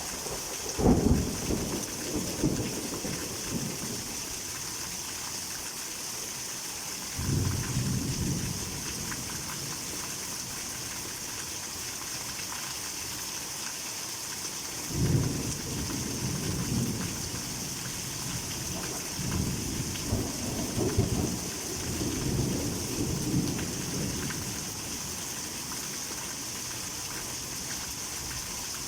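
Heavy rain falling steadily, with low rolls of thunder rumbling in four swells: the loudest about a second in, others about seven and fifteen seconds in, and a longer roll about two-thirds of the way through.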